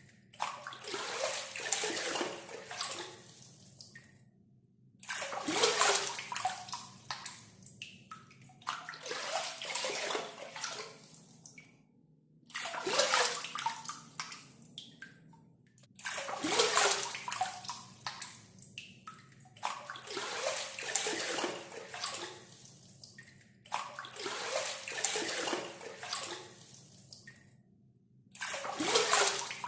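Water scooped with a hand dipper (gayung) and poured out, again and again: about eight splashing pours, each a couple of seconds long, separated by short pauses.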